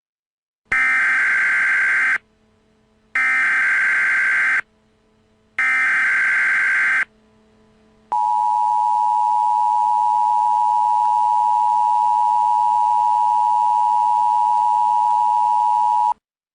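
Emergency Alert System SAME header: three bursts of warbling digital data tones, each about a second and a half long, with roughly a second between them. A steady attention tone follows for about eight seconds and cuts off suddenly, announcing an emergency alert.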